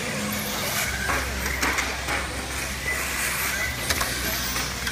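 Radio-controlled on-road touring cars racing around a track: a steady, noisy whir of the cars running, with a few sharp clicks.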